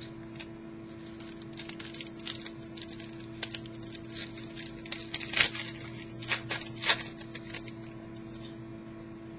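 Football trading cards being handled and flipped through: a run of light clicks and rustles, the loudest about five and a half and seven seconds in, over a steady low hum.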